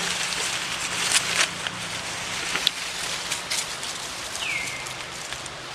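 Rustling and crackling of dry leaf litter with scattered sharp clicks as macaques move over the forest floor. A single short high call falling in pitch comes near the end.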